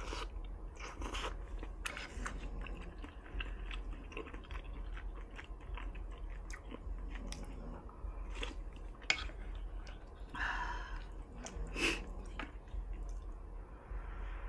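Close-miked chewing of hot pot food, vermicelli noodles and tofu, with many small wet mouth clicks and smacks. A longer, louder mouth sound comes about ten seconds in.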